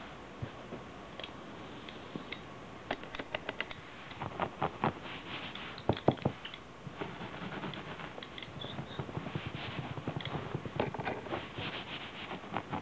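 Irregular light clicks and taps, sparse at first and thickening into quick runs of clicking from about three seconds in, with the sharpest knocks about six seconds in.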